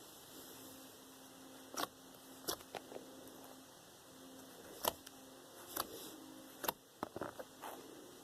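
Homemade slime being poked and squeezed by hand, giving short sticky pops and clicks at irregular moments, over a faint steady hum.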